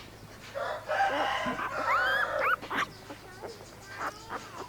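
Rooster crowing once, a call of about two seconds that rises in pitch near its end, with fainter chirps around it.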